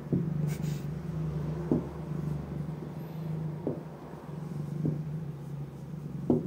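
Domestic cat purring steadily while being stroked, a low continuous buzz with a slight catch every second or two as it breathes.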